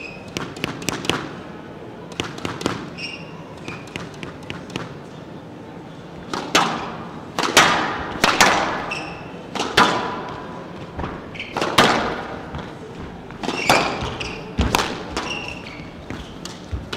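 Squash ball cracking off rackets and the court walls during a rally, about one hit every second or two, lighter at first and louder from about six seconds in. Short, high squeaks of shoes on the wooden floor come between the hits.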